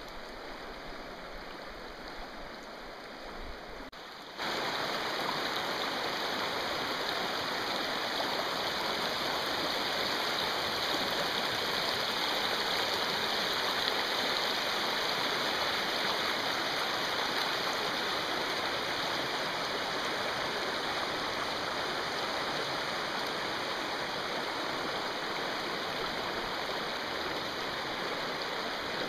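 Alpine river water running over a stony bed. About four seconds in the sound steps abruptly louder to the steady rush of rapids pouring over rocks, which holds to the end.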